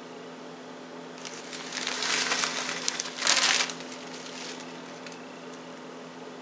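Bag of brown sugar crinkling as it is handled, in two bouts of rustling, the louder one about three and a half seconds in.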